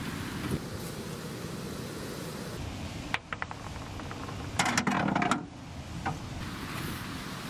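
Small balls rolling down a rough concrete channel, a steady low rolling noise, with a few sharp clicks about three seconds in and a short burst of clattering about five seconds in as a ball knocks into a plastic toy garage.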